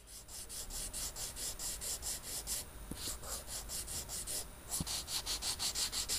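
A brush rubbing quickly back and forth on canvas in rapid scratchy strokes, about five a second, with two short pauses near the middle.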